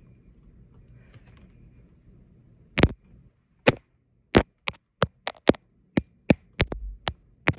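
A quick run of about a dozen sharp plastic knocks, two to three a second, starting about three seconds in: a small plastic Geodude figure being knocked against the phone that is recording.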